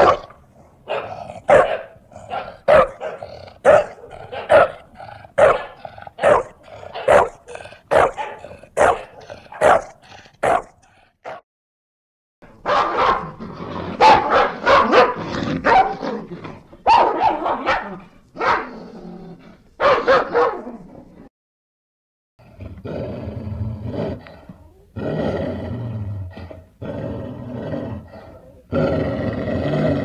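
Dogs barking in three separate recordings. First comes a steady run of single barks, a little under two a second. After a short gap there is a denser, louder burst of barking, and after a second gap come lower, longer, rougher sounds.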